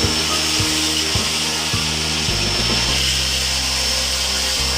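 Vacuum cleaner running steadily with a high motor whine, drawing dust through a cyclone pre-separator. Background music with a steady beat plays underneath and changes about two seconds in.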